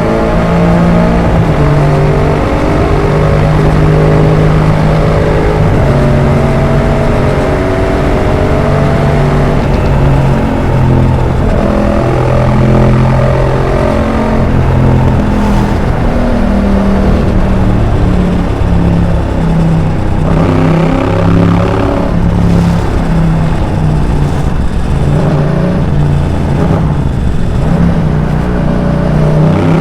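Yamaha MT-07's 689 cc parallel-twin engine through an Arrow aftermarket exhaust, revving up and easing off again and again as the bike is ridden through the gears.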